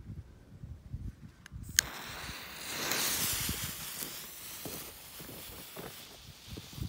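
A sharp click about two seconds in, then the fuse of a Jorge 'Smoke Fountain Blue' smoke fountain hissing, loudest a second later and slowly fading. Footsteps on ploughed soil and wind rumble on the microphone underneath.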